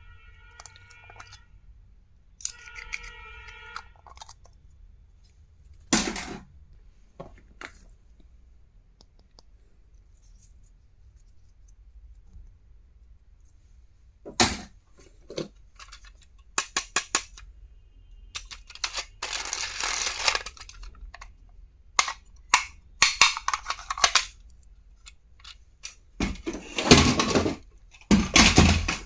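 Stationery and its packaging being handled during an unboxing: scattered clicks and taps of plastic items, and stretches of packaging rustling, the longest near the end. Two brief pitched sounds in the first few seconds.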